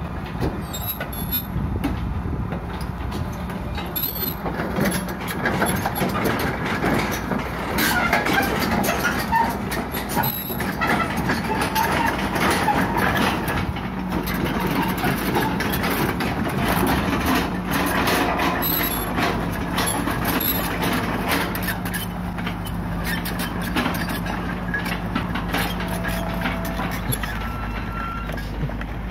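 Hitachi EX120 excavator's diesel engine running under load as its steel tracks clank and grind down a low-loader trailer's steel ramp onto the ground. The clattering is heaviest in the middle and gives way to a steadier engine hum near the end as the machine reaches level ground.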